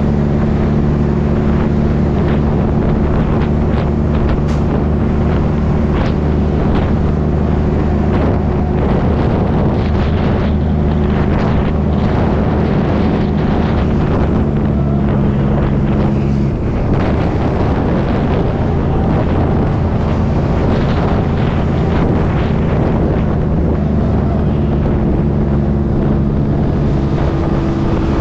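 Tractor-trailer's diesel engine running steadily at cruising speed, with wind rushing over a microphone mounted outside the cab. About two-thirds of the way through the engine tone breaks off briefly, then returns, and it falls a little near the end as the truck slows.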